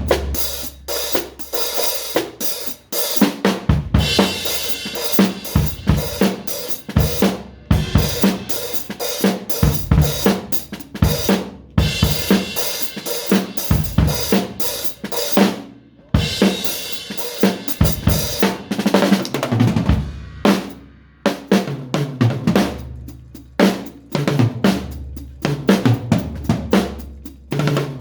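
Drum kit being played freely: snare and bass drum hits with hi-hat and cymbal crashes in busy, uneven patterns, broken by a few short pauses between phrases.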